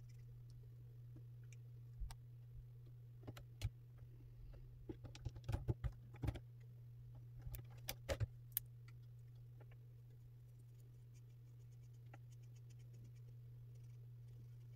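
Plastic marker caps and barrels clicking and knocking on the desk in a scatter of sharp clicks, about two to nine seconds in, as one Milo art marker is put down and another picked up. A steady low hum runs underneath, and there is faint quick ticking near the end.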